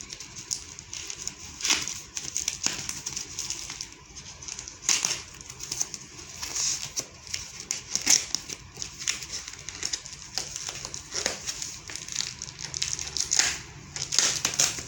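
Plastic packaging being unwrapped by hand: irregular crinkling and crackling with a few louder, sharper crackles.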